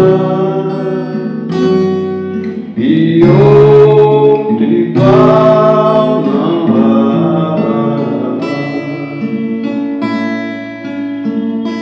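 A man singing held, wordless notes over a strummed acoustic guitar, a slow gospel song. The voice drops away about seven seconds in and the guitar plays on alone.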